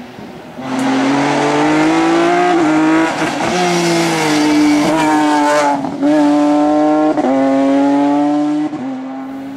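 Rally car engine under hard acceleration, its pitch climbing and dropping back at each upshift, about four times, before it fades near the end.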